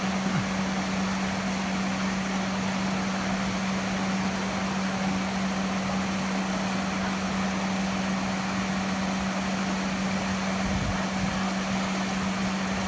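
A steady machine-like hum: one constant low tone over an even hiss, unchanging throughout.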